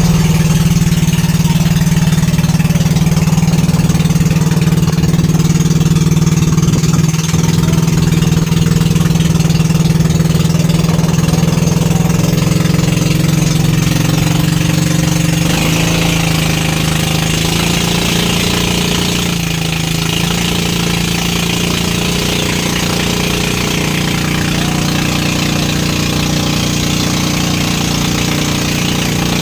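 Engine of a motorized bangka outrigger boat running steadily under way, a loud, even drone, with the hiss of water and wind over it.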